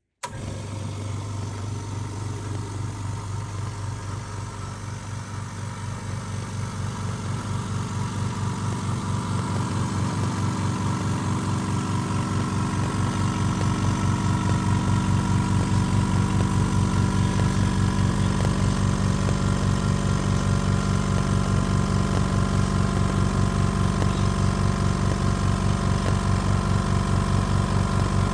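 Black & Decker BXCMX106HE oil-free air compressor's motor and pump running with an even, pulsing hum. It starts suddenly and grows gradually louder over the first half, as the pump works against rising tank pressure.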